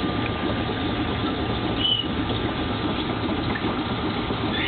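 Aquarium filter and pump running: a steady rush of moving water with a low hum. A brief high squeak comes about two seconds in.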